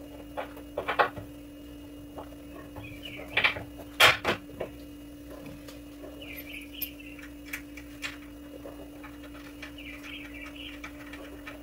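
Scattered metallic clanks and clicks of hand tools and parts on the truck's front suspension while a sway bar link is fitted, the loudest about a second in and about four seconds in. Short bird-like chirps come and go under a steady hum.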